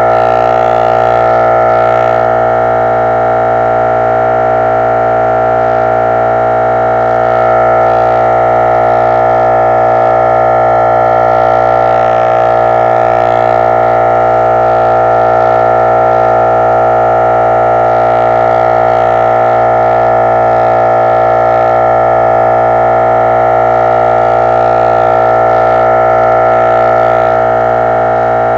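Synthesized robot sound effect: a loud, steady electronic chord of several held tones that does not change in pitch.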